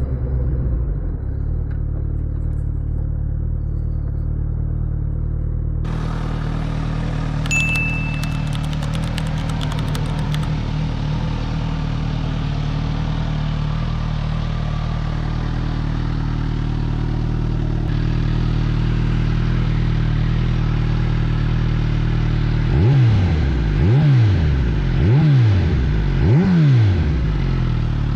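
Suzuki GSX-S1000's inline-four engine idling steadily, then revved four times near the end, each blip rising and falling quickly. A short high beep sounds about seven seconds in.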